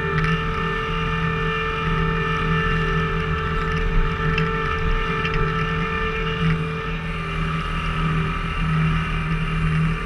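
Skid steer engine running steadily under load, with a steady whine over the engine note, as the machine swings its hydraulic log splitter attachment round.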